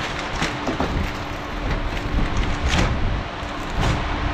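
Clear plastic wrapping crinkling and rustling in several short bursts as it is pulled off a new gas cooktop's grates, over the steady whoosh of electric fans.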